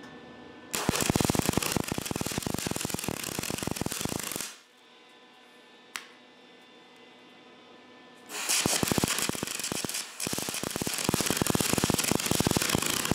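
Wire-feed (MIG) welder arc crackling in three bursts as a hole in a steel bar is filled with weld: a run of about four seconds, then after a pause two shorter runs back to back near the end.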